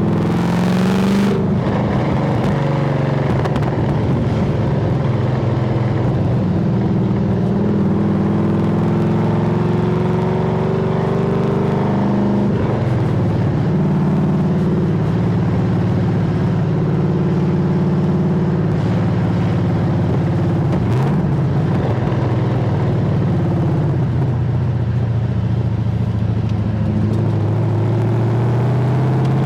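Holden VY Commodore SS's 5.7-litre LS1 V8 exhaust while driving, picked up by a microphone outside the car. The engine note holds steady, climbs in pitch as it accelerates near the start and again near the end, and dips briefly partway through. A short rush of hiss comes in the first second.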